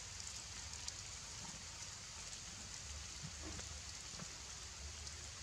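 Steady outdoor background hiss with a few faint ticks and taps scattered through it.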